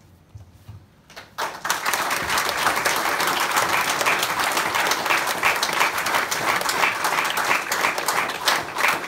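Audience applause breaks out about a second in: many people clapping, quickly building to a steady, dense clatter that keeps going.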